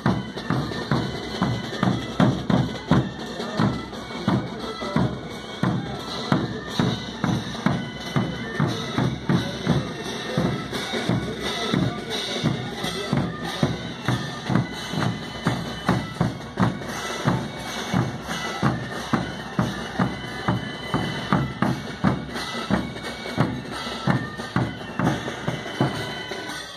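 Andean carnival band music: large drums beating a steady, even rhythm under high wind instruments playing a melody together.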